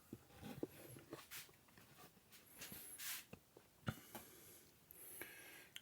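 Faint scattered clicks and knocks with brief patches of soft hiss, around a quiet kitchen.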